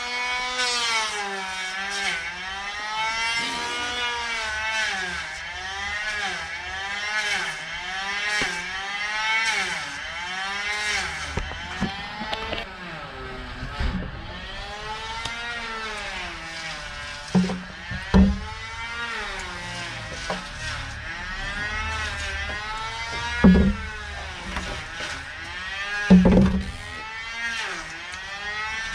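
Handheld electric power tool running, its motor pitch dipping and recovering about once a second as it is pressed against and eased off the work, with a few short knocks in the second half.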